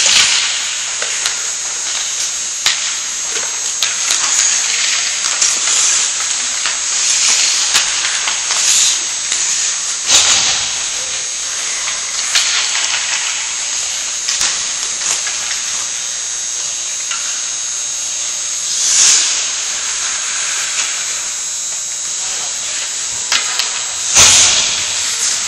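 Hockey skate blades scraping and carving on rink ice over a steady high hiss. The scrapes swell every second or so, with a few louder, harder scrapes like stops.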